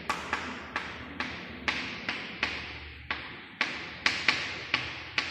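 Chalk tapping on a chalkboard as figures are written: an uneven run of sharp taps, about three a second.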